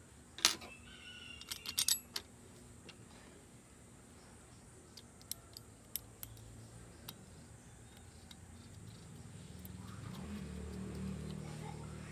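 Small metal chainsaw parts clinking as they are handled and fitted: a cluster of sharp clinks with a short ring in the first two seconds, then a few faint light taps. A low hum swells up over the last few seconds.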